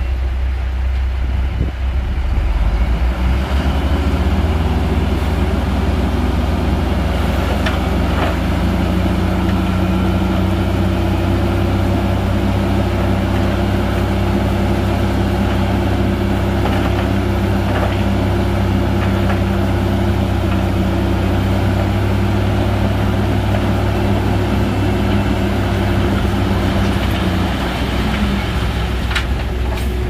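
Heavy earthmoving machine's diesel engine working under load. It settles into a steady, higher running note a few seconds in, holds it, then eases back near the end, with a few short knocks along the way.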